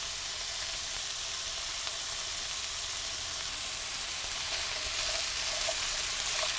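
Carrots frying in olive oil in a pan over medium heat: a steady sizzle that gets a little louder about two-thirds of the way through.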